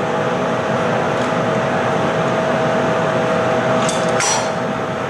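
Steady loud background noise of a hot-glass studio's equipment, with a steady hum tone under it. About four seconds in there are two short metal clinks.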